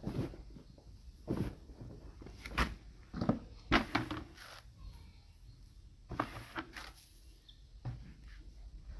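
Animal feed (silage and dry-matter mix) being turned over and mixed by hand, giving irregular rustling and scraping bursts about every second.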